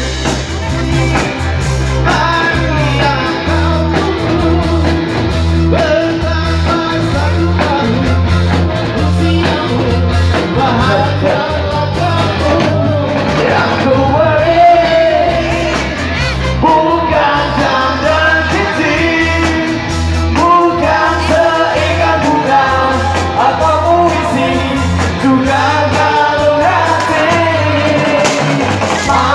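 Dangdut koplo band music with a strong bass line while several people sing together into microphones.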